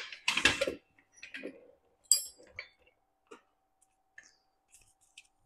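Metal clatter and clinks from a steel hydraulic floor jack being set on the machine's table and moved into place under the gantry: a burst of knocks at the start, a sharp ringing clink about two seconds in, then a few faint scattered ticks.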